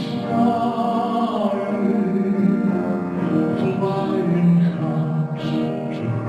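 A male baritone voice singing a slow, melodic song with piano accompaniment, holding long notes with vibrato.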